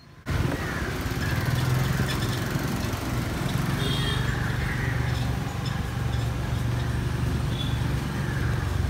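A vehicle engine running steadily while on the move, a loud low drone with a rapid fine pulse. It cuts in suddenly just after the start.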